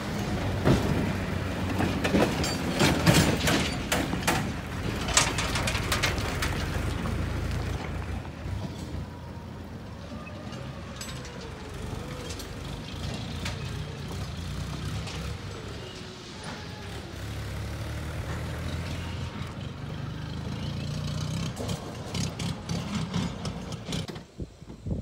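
An engine running steadily, with a quick series of metallic clanks and clatter over the first several seconds.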